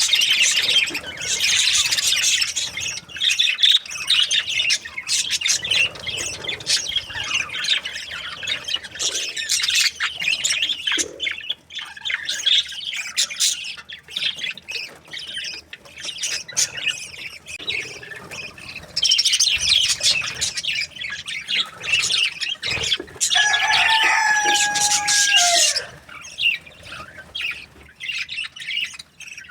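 A flock of budgerigars chirping and chattering continuously, in many quick overlapping high calls. About three quarters of the way through, a longer, lower held call sounds for a couple of seconds and falls away at its end.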